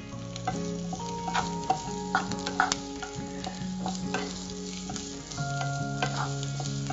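Chopped onions sizzling in hot oil in a non-stick pan, stirred with a wooden spatula that knocks and scrapes against the pan at irregular moments.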